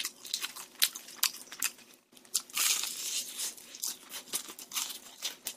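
Close-miked chewing of crispy rice-batter fried chicken: a run of sharp crunches, with a denser stretch of crunching about two and a half seconds in.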